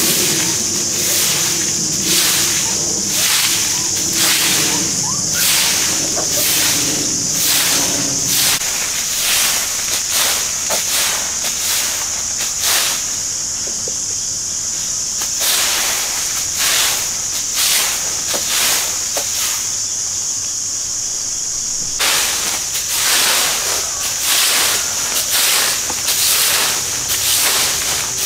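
Soft grass broom sweeping bare dirt and dry leaves in quick repeated swishing strokes.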